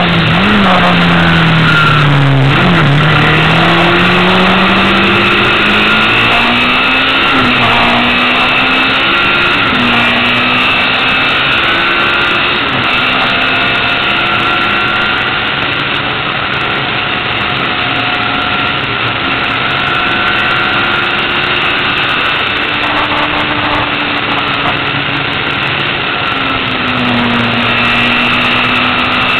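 Onboard sound of a Lola T496 racing car's engine driven hard up a hillclimb road: the note falls for the first couple of seconds as it slows, then climbs again, rising and dropping back several times as it works through the gears.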